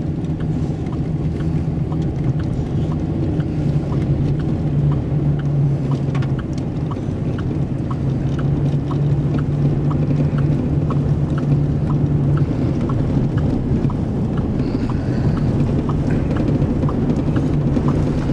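Steady in-cab noise of a vehicle driving on a gravel road: a constant engine hum under road and wind rumble, with faint ticks about twice a second.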